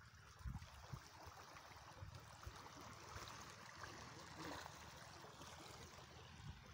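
Faint, steady rush of a wide river's flowing water, close to near silence.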